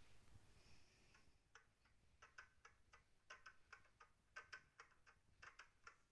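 Faint, sharp clicks repeating in a rhythm, in little groups of two or three about a second apart, starting about a second and a half in.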